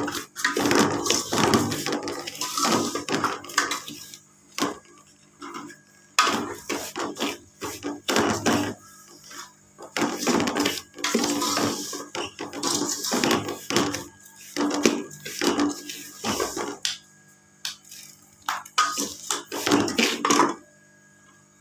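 A metal spoon scraping and stirring dry cracked wheat (daliya) in a metal pot as the grains roast in a little oil. The strokes come in irregular runs, with short pauses now and then.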